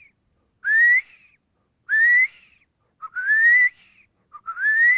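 A man whistling, without a call device, an imitation of a bobwhite quail hen's answer to the male's 'bob-white' mating call. Four rising whistled notes come about one a second; the last two begin with a short lower note. It is like the assembly call but more plaintive, the call of a hen ready to mate.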